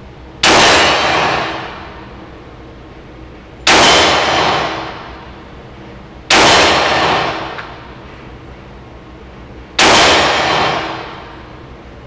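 Four pistol shots from an H&K USP Compact in .40 S&W, about three seconds apart, each a sharp crack followed by a ringing echo of about a second inside the indoor range.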